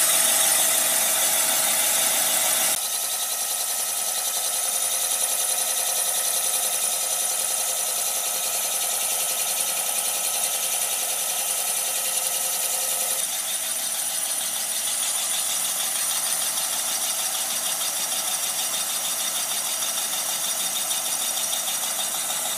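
Boring bar, a vertical cylinder-boring machine, running and cutting out a cylinder of a Jeep 2.5 engine block on an oversize pass. It makes a steady machine whir with several high, constant tones. The sound drops abruptly in level about three seconds in and changes again near the middle.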